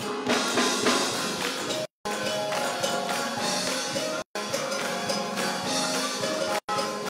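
Live gospel praise music from a church band and choir, with tambourine. The sound cuts out completely for a split second three times.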